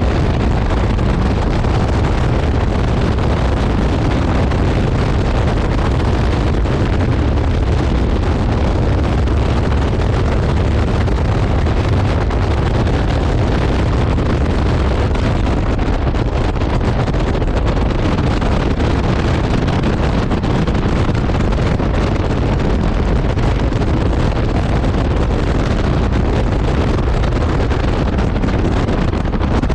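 Caterham 7 Supersport at track speed, heard from its open cockpit: heavy, steady wind buffeting on the microphone, with the engine and road noise beneath it.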